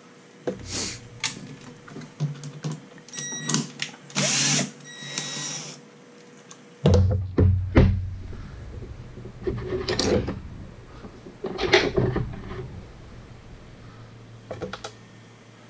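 Hands working wiring inside a metal toaster-oven case: irregular rustling, clicks and knocks, with a few short buzzy rasps in the first half and heavier knocks about seven seconds in.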